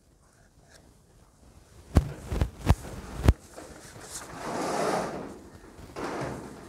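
Sheets of paper being handled at a wooden lectern: four sharp knocks about two to three seconds in, then rustling of paper, once at length and once briefly near the end.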